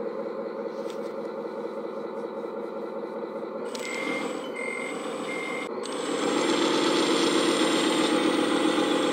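Radio-controlled Volvo A40G articulated dump truck running with a steady engine-like drone. Three short reversing beeps sound about four seconds in, and the drone gets louder from about six seconds.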